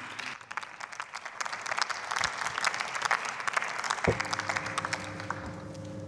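Applause in a parliament chamber: many hands clapping, thinning out over the second half. About four seconds in there is a knock, followed by a steady low hum.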